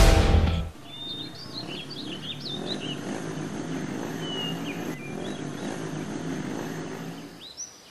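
A motor scooter's engine running steadily, with birds chirping now and then, most often in the first few seconds. A loud music cue fades out within the first second.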